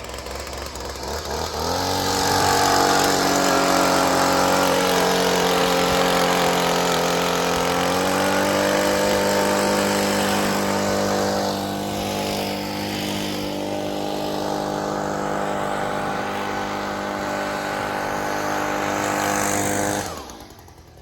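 A small leaf blower runs. It spins up over the first couple of seconds, shifts pitch a few times, and cuts off about a second before the end.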